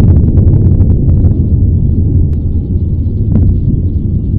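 Volcanic lava fountain erupting: a loud, deep rumble with sharp crackles and pops, most of them in the first second or so, then a few scattered ones.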